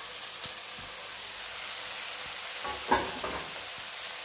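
Spiced chicken pieces sizzling in a covered metal wok, a steady frying hiss. About three seconds in comes a short metallic clank with a brief ring, as the metal lid is lifted off the pan.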